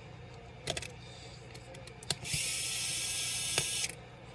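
A few sharp clicks, then a steady hiss of a pressurised jet of gas lasting about a second and a half and cutting off suddenly.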